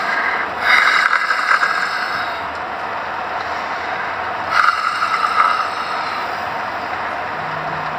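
A sleeping person snoring: two rasping snores about four seconds apart over a steady hiss.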